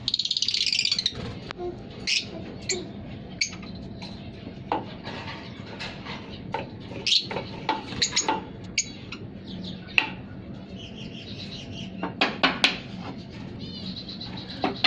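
Small cage birds chirping: a quick high trill at the start, then scattered short, sharp calls, with a quick run of them near the end.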